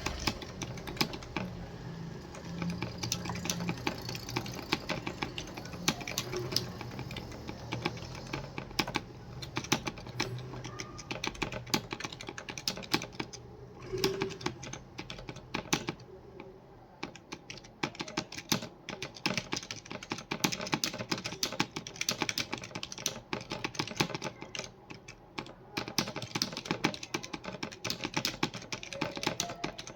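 Computer keyboard being typed on fast and continuously, a dense stream of keystroke clicks with a few brief pauses.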